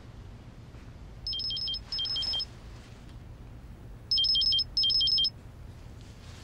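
Mobile phone ringing with an incoming call: an electronic ringtone of quick, high two-note beeps in four short bursts, coming in two pairs, the second pair louder.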